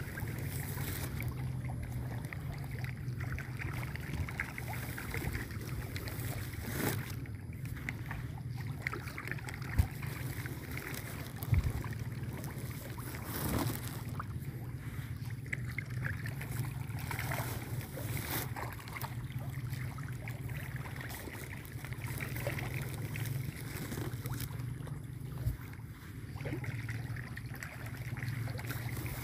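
A steady low hum with wind noise on the microphone, broken by a few short knocks.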